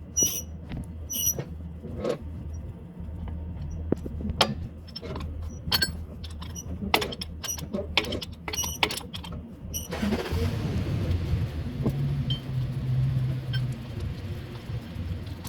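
Irregular metallic clinks and knocks of hand tools at work on a tractor's starter motor mounting, over a steady low hum. From about ten seconds in a steadier broad noise with a low tone joins in.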